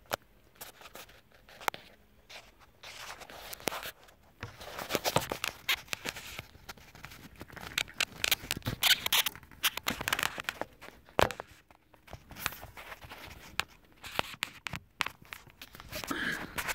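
Handling noise from a phone camera being picked up and moved about: rubbing and scraping against the microphone, with scattered sharp clicks and knocks.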